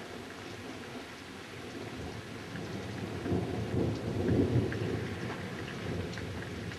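Thunder rumbling, swelling from about three seconds in and peaking a little after four seconds, over steady rain with scattered drop ticks.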